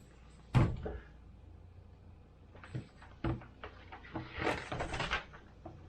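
A sharp knock about half a second in, then paper rustling as a thin Lego instruction booklet is handled and its pages flipped, densest about four to five seconds in.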